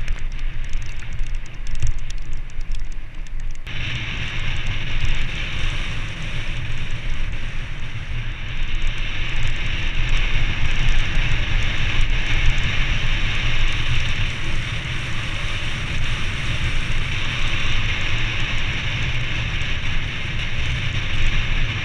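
Wind buffeting the microphone of a helmet-mounted camera on a moving mountain bike: a steady, rough rumble, joined about four seconds in by a constant hiss of air and tyres on the road.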